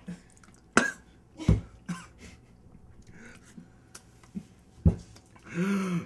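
A man coughing and spluttering in short, scattered coughs, with a strained, drawn-out groan near the end. He is reacting to the burn of a tequila shot laced with extremely hot sauce.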